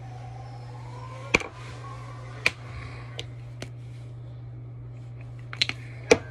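Several sharp, separate clicks and taps, close to the microphone, over a steady low hum. The two loudest come about a second and a half in and just before the end, with a quick cluster shortly before that last one.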